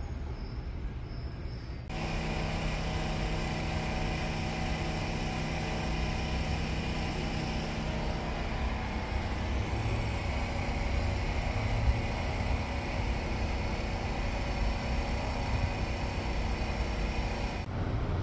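Metro train's electrical equipment humming steadily: several steady tones over a low rumble. The sound changes abruptly about two seconds in and again near the end.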